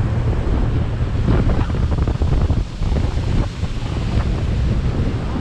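Wind buffeting the microphone: a loud, steady low rumble with irregular gusty rustle.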